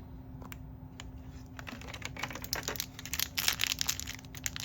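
Plastic toy packaging being handled and unwrapped by hand: a few scattered clicks, then dense crinkling and crackling from about two seconds in.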